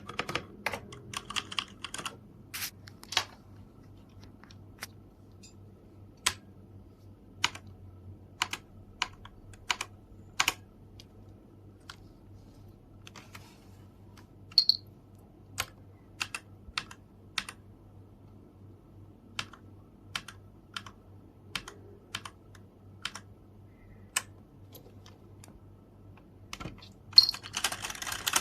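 Keystrokes on a MetaMinor META68 65% mechanical keyboard: scattered single key presses, with quicker runs of typing near the start and again shortly before the end.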